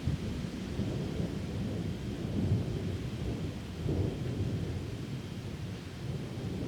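Thunder rumbling low and continuously through a downpour, swelling about two and a half seconds in and again around four seconds, with the hiss of rain under it.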